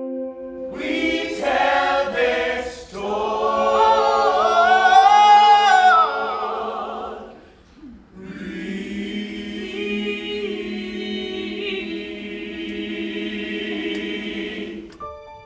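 A choir singing, with loud swelling phrases in the first half, a short break, and then a long held chord.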